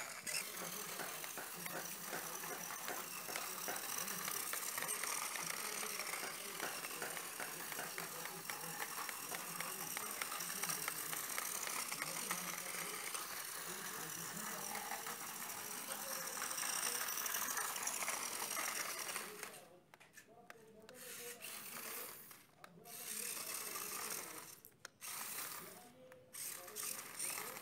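Small DC geared motors of a homemade RC tractor running as it drives over concrete. The sound is steady at first, then breaks into short stop-start runs in the last several seconds.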